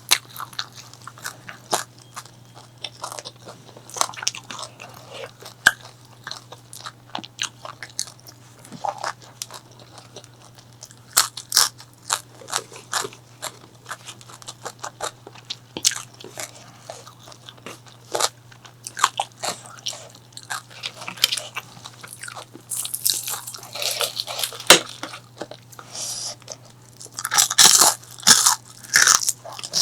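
Close-miked biting and chewing of crispy fried food: a steady run of crisp crunches and mouth clicks, getting denser and louder in the last third.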